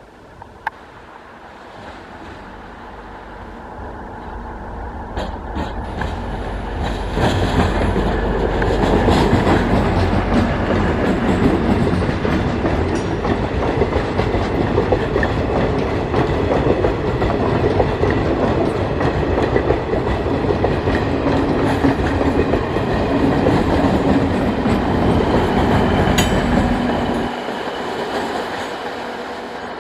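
A train passing close by: its rumble builds over several seconds, stays loud with wheels clattering over the rails, then the low rumble drops away suddenly near the end.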